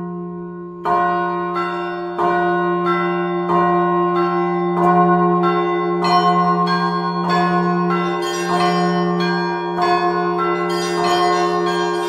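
Russian Orthodox church bells rung by hand from ropes: a steady rhythm of strikes on the smaller bells, about three every two seconds, over the lasting hum of a larger bell. Near the end the ringing grows busier with quick high bells.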